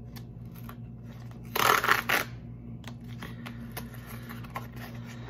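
Cardboard mailer envelope being torn open by hand: a loud ripping burst about a second and a half in, with small paper clicks and crinkles around it.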